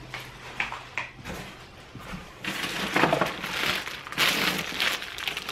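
Clear plastic bag crinkling and rustling as a packaged item is lifted out of a cardboard box and handled. There are a couple of light knocks in the first second, and the crinkling is loudest from about halfway through.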